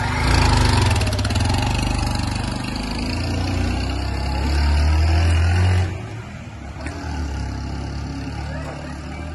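Small motorcycle pulling away with a rider and passenger, its engine revving as it accelerates down a cobblestone street. The engine grows fainter with distance, and the level drops sharply about six seconds in.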